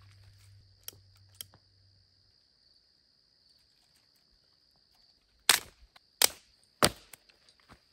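Dry sticks snapped by hand for a campfire: three sharp, loud cracks a little over halfway through, after a couple of lighter twig snaps early on. A steady high insect trill runs underneath.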